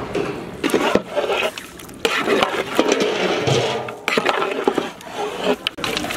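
Pieces of goat meat being stirred and turned in a big cooking pot with a long ladle, scraping and knocking against the pot in uneven strokes.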